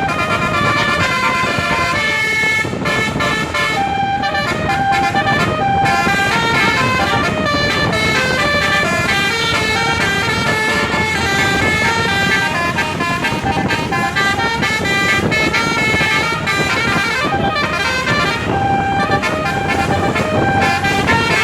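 Bus 'telolet' basuri horn, a multi-tone musical air horn, playing a melody of quickly changing notes over a low vehicle rumble.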